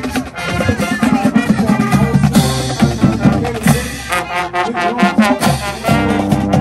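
Marching band playing: brass (trumpets, mellophones, sousaphones) over a drumline of snare and bass drums, loud, with a held brass chord near the end.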